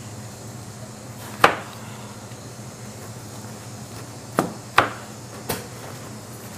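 A large kitchen knife chopping through young jackfruit onto a plastic-wrapped cutting board: four sharp knocks, one about a second and a half in and three close together near the end, over a steady low hum.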